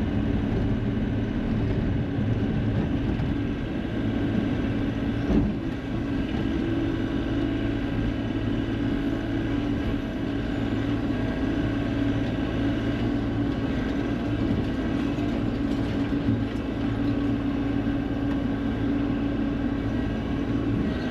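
Heavy construction machine engine running steadily, with a single knock about five seconds in.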